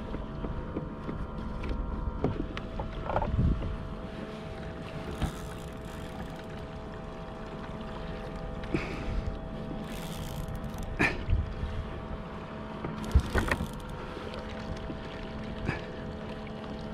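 Sounds on a plastic fishing kayak at sea: water against the hull with a handful of short knocks from the rod and gear on the deck, the sharpest about two-thirds of the way in, over a steady hum.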